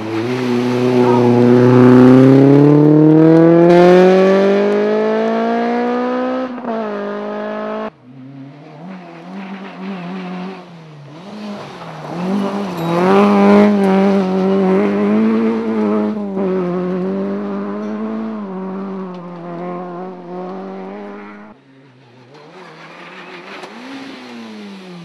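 Rally cars at full throttle on a special stage, in several cut-together passes. The first car's engine revs climb steadily for about six seconds and then fall away. A second car runs at high revs with the pitch wavering on and off the throttle, loudest about halfway through. A quieter engine follows after a sudden cut near the end.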